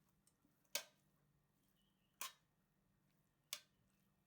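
Near silence with three faint, short clicks about a second and a half apart.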